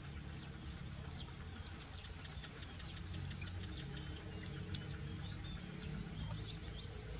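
Faint chirping of small birds: many short, high chirps scattered through, over a steady low rumble.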